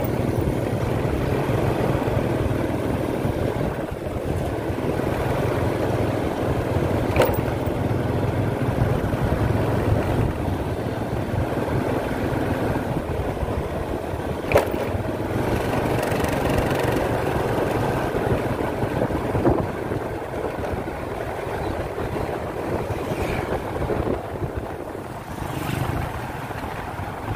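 Motorcycle engine running steadily while riding at low speed, with road and wind noise. A couple of short sharp clicks come through, about seven seconds in and again about fifteen seconds in.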